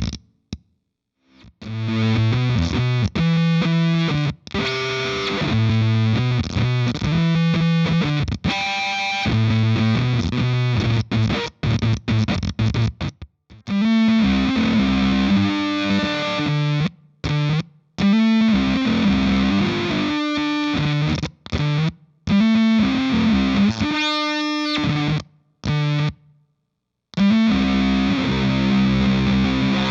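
Electric guitar played through the Rainger FX Dr. Freakenstein Fuzz pedal into a Marshall amp: heavily distorted fuzz riffs and chords, with octave overtones built into the fuzz. The playing comes in short phrases that cut off abruptly, with several brief silences.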